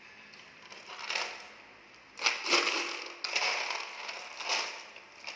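Balls rolling and clattering down a wooden Las Vegas slider marble track, in several bursts of rattling, with the loudest a little after two seconds in.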